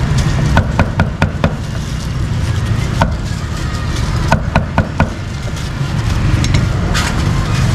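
Cleaver chopping meat on a wooden block: sharp strikes in short runs of two to four, over a steady low background rumble.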